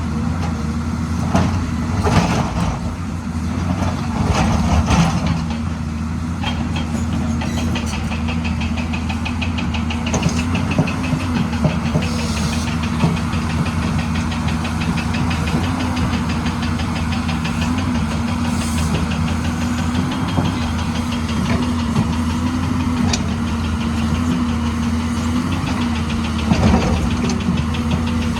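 Hyundai excavator's diesel engine running at a steady speed, with a few sharp knocks in the first few seconds and again near the end, and a fast, even ticking over the engine from about eight seconds in.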